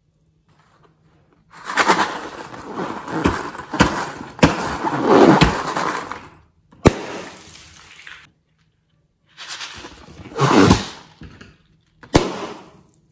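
Filler beads and sprinkles emptied from balloons into a glass bowl of slime: several bursts of crackling, rattling noise with sharp clicks, one click standing alone about seven seconds in.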